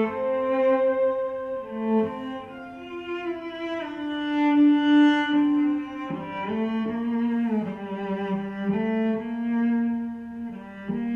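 Bowed-string music, a slow melody of long sustained notes, played back through hi-fi loudspeakers and picked up by a room microphone.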